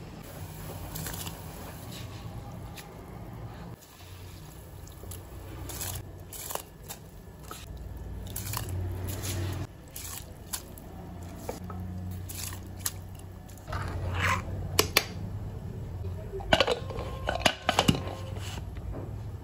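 Spiced water simmering in an aluminium pressure cooker, with scattered clicks and splashes as rice is tipped in by hand. Near the end comes a cluster of sharp metallic knocks and clatters from the cooker.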